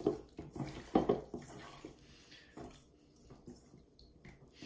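Hands squishing and turning raw chicken and pork pieces through an oily marinade in a stainless steel bowl: wet squelching with a few louder slaps near the start and about a second in, then quieter.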